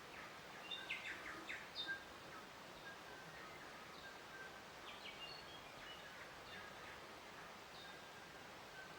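Birds chirping and calling over a faint, steady outdoor hiss, with a cluster of short quick chirps about one to two seconds in and scattered brief whistled notes after.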